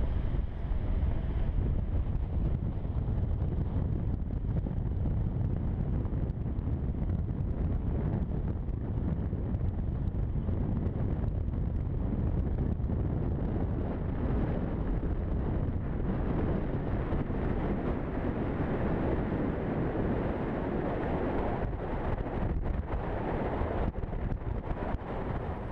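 Steady wind noise buffeting the microphone, a low rumble, on the deck of a ship under way.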